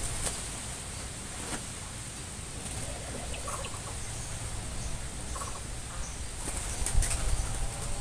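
Small birds fluttering their wings and shifting about on a hanging bunch of bananas as they feed, with a few short, quiet calls and a couple of sharp knocks.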